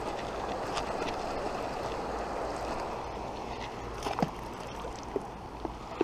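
Steady outdoor rushing noise with a sharp click right at the start and a few faint clicks and taps in the last two seconds.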